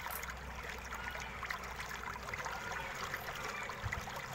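Faint scratching and small clicks of fingers picking at a laptop's battery cable connector on the motherboard, over a steady background hiss.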